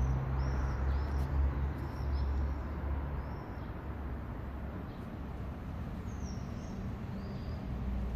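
Small birds chirping in short, high, repeated calls, about one or two a second, in two runs, over a steady low hum that weakens about halfway through.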